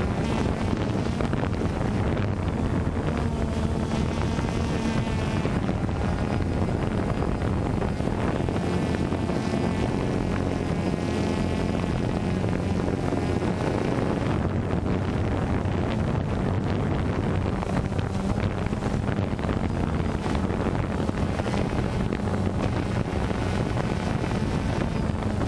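DJI Phantom 2 quadcopter's motors and propellers running up close: a steady buzzing hum with a whine that drifts up and down in pitch, mixed with wind rush on the microphone.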